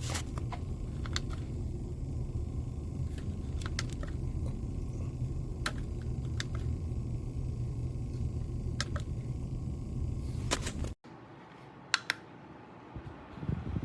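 Small USB desk fan running with a steady, low whir of air, with scattered light clicks and taps over it. About eleven seconds in the sound cuts abruptly to a quieter level, and a pair of clicks follows a second later.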